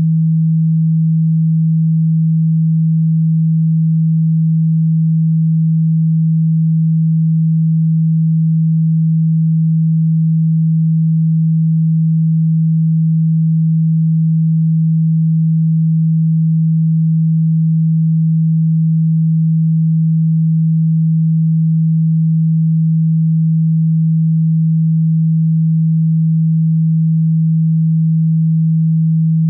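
A steady, low electronic sine tone held at one pitch, with no change in loudness.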